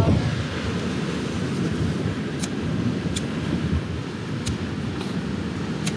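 Wind buffeting the microphone, a steady low rumble, with a few light clicks in the second half.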